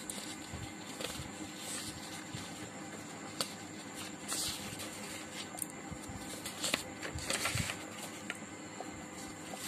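Paper rustling and handling noise as a notebook page is turned, with a couple of brief rustles and a few light taps.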